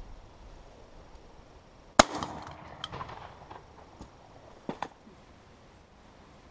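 A single shotgun shot fired at wood pigeons about two seconds in, with a short echoing tail. A quick pair of sharp clicks follows a little under three seconds later.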